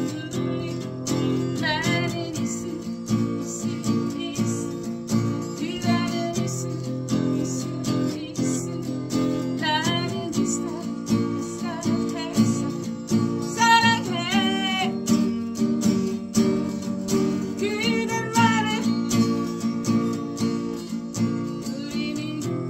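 A woman singing to her own strummed acoustic guitar, with steady chord strumming throughout and sung phrases coming in and out over it.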